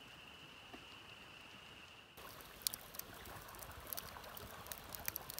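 Creek running faintly under a steady high-pitched chorus. About two seconds in this gives way to a louder hiss with scattered sharp crackles and pops from the campfire.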